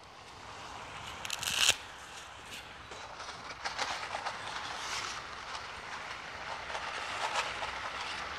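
A cardboard spaghetti box torn open with one short rip about a second and a half in, then dry spaghetti clicking and rattling as it is shaken into a pot of rapidly boiling water. Under it runs a steady crackling bubble from the boiling water and a white-wine sauce reducing in the pan.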